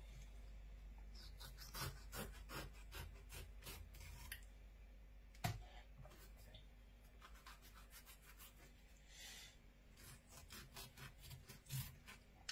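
Knife cutting fins and tough skin off a dogfish on a wooden chopping board: faint short scrapes and light clicks, with one sharper tap about five and a half seconds in.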